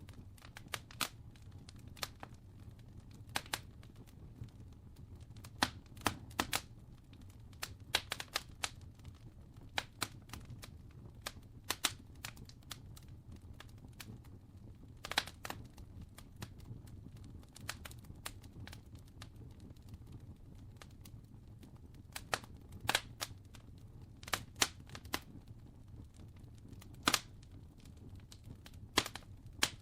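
Wood fire crackling: irregular sharp pops and snaps, sometimes in quick little clusters, over a low steady rumble.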